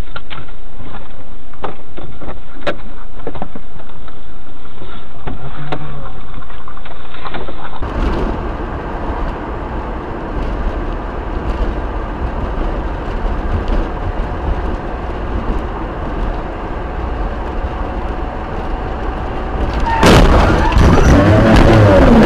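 Vehicle road and engine noise as picked up by car dashboard cameras, changing abruptly twice as one clip gives way to another, with sharp clicks in the first part and a louder stretch near the end.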